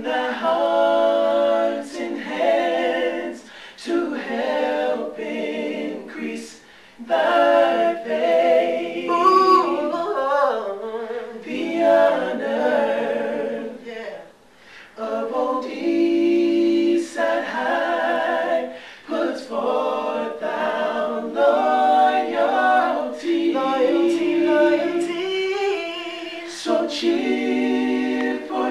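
An a cappella vocal group singing in close harmony without instruments, in phrases broken by short pauses, with some chords held for a second or two.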